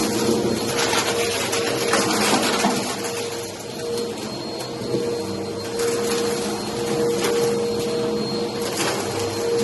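Vacuum cleaner running on carpet: a steady motor hum under a loud hiss of suction that swells and eases every second or two as it is pushed back and forth.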